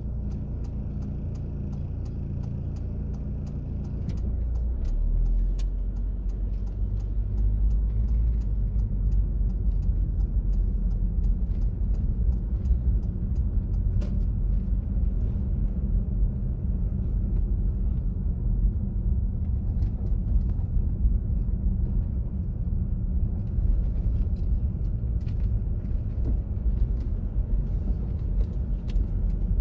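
Car driving: steady engine and road rumble, growing louder about four seconds in as it picks up speed, with a run of light ticks, about three a second, for several seconds in the middle.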